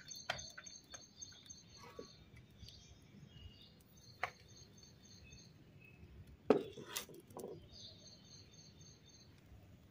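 Small birds chirping on and off in the background, with a few short knocks and pats, the loudest a cluster about six and a half to seven seconds in.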